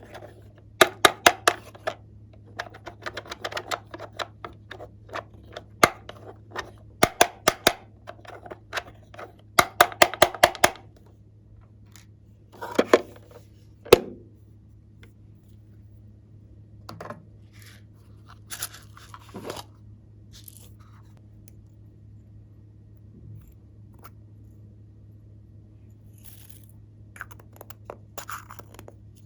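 Glossy slime being pressed and stretched by hand, making quick runs of sharp clicking pops through the first ten seconds, then two louder pops and a few scattered soft squishes, over a steady low hum.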